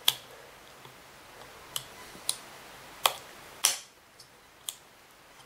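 Sharp metallic clicks from circlip pliers working a circlip off the rear wheel axle of a Kirby vacuum, about six clicks with a short scrape just past the middle.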